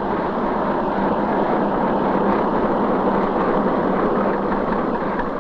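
Niva SK-5A combine harvester running while its header cuts standing grain: a steady, dense mechanical noise with a constant low hum, heard through an old optical film soundtrack.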